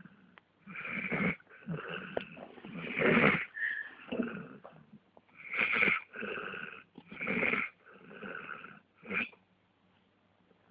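A four-legged pet snoring in its sleep: a run of about ten uneven snores, roughly one every second, the loudest about three seconds in, falling quiet near the end.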